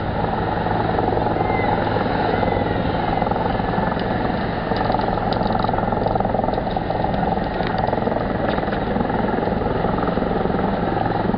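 Helicopter hovering: a steady rotor and engine drone with a low, even hum that holds the same level throughout.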